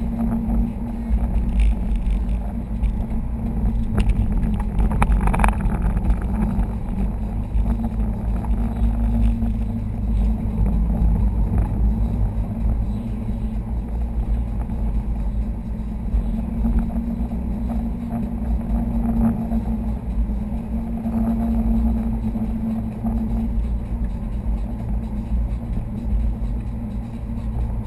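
Steady in-cabin driving noise from a 2011 Subaru STI cruising at about 40 mph with the windows shut and the air conditioning running: a low rumble of engine and tyres with a steady hum.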